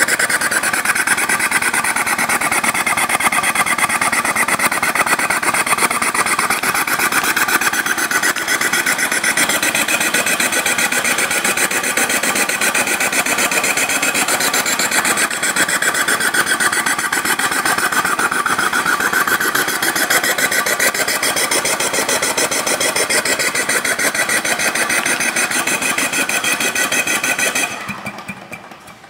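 Diesel engine converted to run without petroleum fuel, running steadily with a fast, even knock. The sound fades away near the end.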